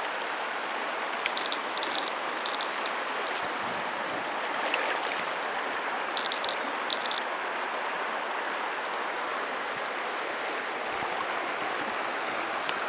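Shallow river current running steadily over stones, with a few light high ticks in the water sound.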